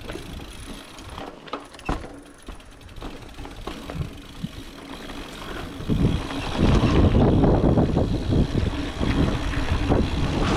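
Mountain bike on a trail: a quieter stretch of coasting with the rear freehub ratcheting and scattered knocks, then about six seconds in a loud rumble and rattle of tyres and bike over rough ground.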